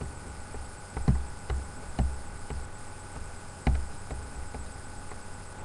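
Electric bass guitar plucked with the fingers: two short runs of low notes about half a second apart, the first starting about a second in and the second just before the middle, over a steady faint hiss.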